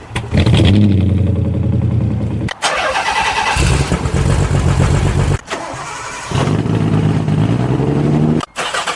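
Car engine running and revving in several short segments, each broken off abruptly by a cut, roughly every three seconds.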